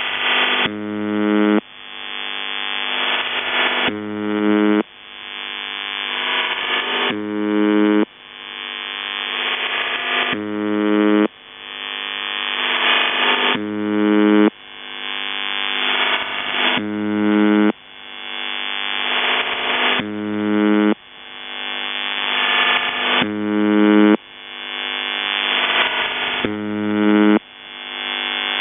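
UVB-76 'The Buzzer' shortwave channel marker heard over a radio receiver: a harsh, low buzz about a second long, repeating roughly every three seconds. Between the buzzes the idle channel of a CIS-12 modem leaks through as a hiss that swells up each time, as the audio compression recovers in the gap of the buzz cycle.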